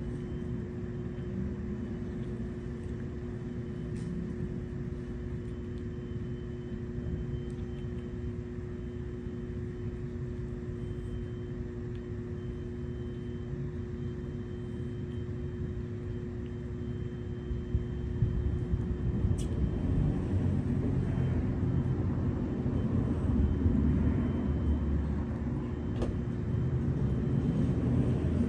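Steady low mechanical hum with a couple of fixed tones, joined by a louder low rumble that builds about two-thirds of the way in.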